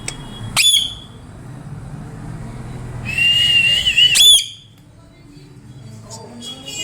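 Pet parrot whistling: a sharp upward-swooping whistle about half a second in, then a longer wavering whistle that ends in another sharp upward swoop about four seconds in, over a low steady hum that stops soon after.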